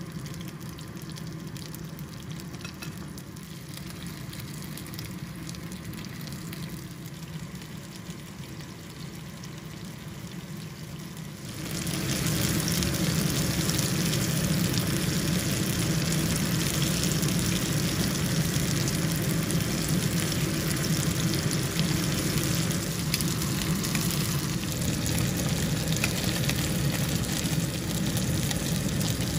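Shrimp sizzling in hot oil in a frying pan, a steady crackling sizzle. About a third of the way through it suddenly turns louder and brighter, and stays that way.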